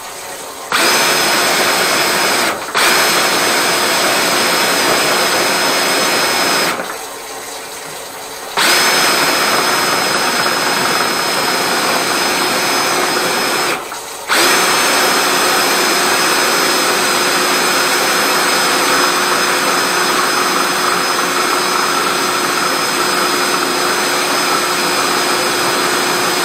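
Electric drain-cleaning machine running its cable through a grease-clogged kitchen sink drain: a steady motor whine that starts about a second in, then cuts out and restarts three times, once for about two seconds and twice only briefly.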